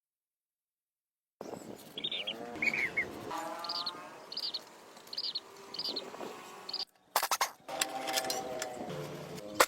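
Birds chirping: a run of short, high chirps repeated at an even pace, about one every 0.7 s. Near the end the chirps give way to a few clicks and scrapes.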